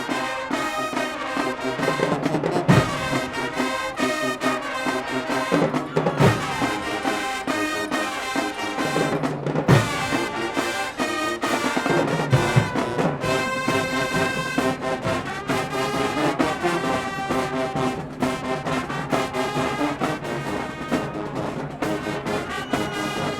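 High school marching band playing a full brass-led arrangement, with several heavy low drum hits in the first half.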